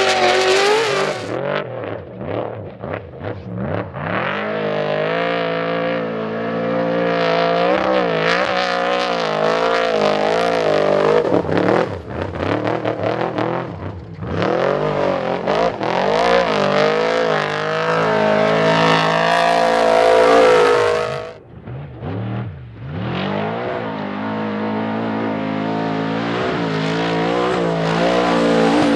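Race engines of Trophy Trucks and Class 1 buggies revving hard and easing off through dirt turns, one vehicle after another. Their pitch rises and falls with the throttle, and the sound changes abruptly a few times as the shot cuts from one vehicle to the next.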